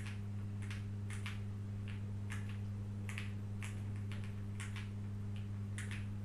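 Keys on a Xinmeng M71 gasket-mounted aluminium mechanical keyboard, fitted with factory-lubed Outemu Crystal White switches and a PC plate, pressed one at a time, about two clacky keystrokes a second. A steady low electrical hum runs underneath.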